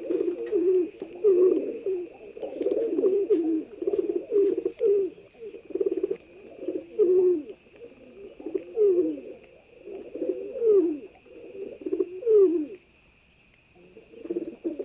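Pigeons cooing in repeated phrases of falling notes, stopping for about a second near the end. A faint steady high tone runs underneath.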